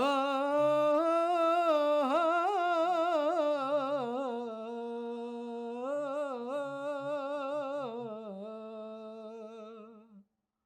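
A solo voice singing one long, unaccompanied melismatic vowel in the Bahraini sawt style. The note is ornamented with quick wavering turns, sinks slowly in pitch and breaks off about ten seconds in.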